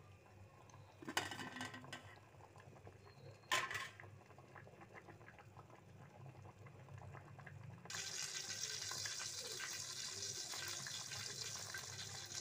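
Water with greens and fish boiling in a metal pot, bubbling and hissing, with two sharp knocks in the first few seconds. The boil turns suddenly louder and hissier about eight seconds in.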